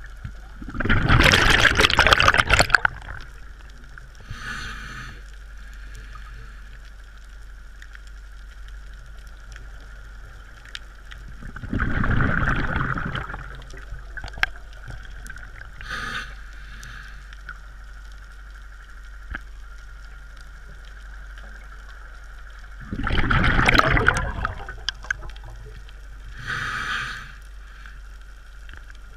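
Scuba diver breathing through a regulator underwater: three loud bursts of exhaled bubbles, each about two seconds long and roughly eleven seconds apart, with a shorter, fainter hiss a few seconds after each. A steady faint whine runs underneath.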